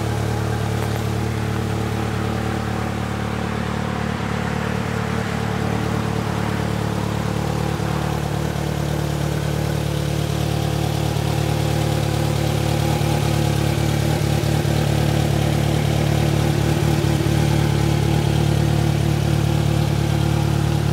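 2023 Polaris Slingshot R's 2.0-litre four-cylinder engine idling steadily through its stock exhaust. It gets a little louder about halfway through.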